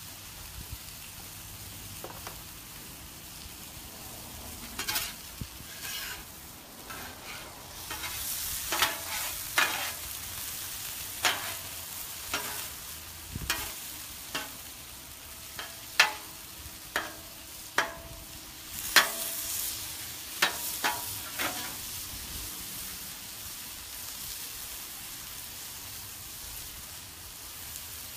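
Bite-size chicken pieces sizzling on a Blackstone flat-top griddle, a steady hiss throughout. Through the middle stretch a metal spatula scrapes and clacks sharply against the griddle's steel top as the pieces are stirred and flipped, then the sizzle carries on alone.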